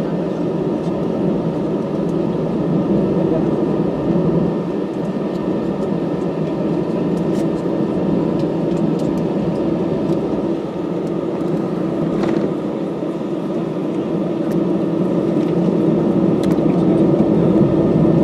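Jet airliner cabin noise while taxiing: the engines running at taxi power give a steady hum with a faint steady whine, growing slightly louder near the end.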